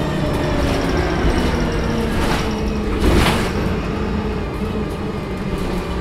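VDL SB200 Wright Pulsar 2 single-deck bus heard from inside the saloon while under way: the rear-mounted diesel engine running with a turbocharger whine, its pitch drifting slowly down. A brief hiss comes about three seconds in.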